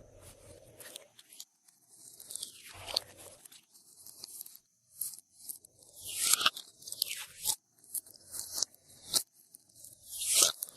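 Glossy slime being squeezed, folded and stretched by hand, giving irregular bursts of crackling and popping with sharp clicks, loudest near the middle and near the end.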